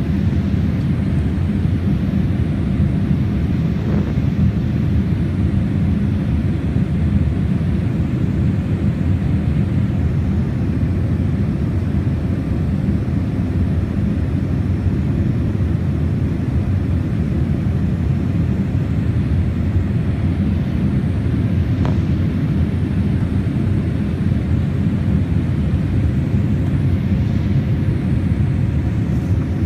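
Jet airliner cabin noise shortly after takeoff: a steady low rumble of engines and rushing air, heard through the window seat.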